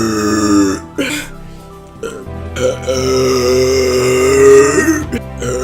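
Loud, drawn-out burps: one ending about a second in, then a long steady one lasting nearly three seconds, and another starting near the end.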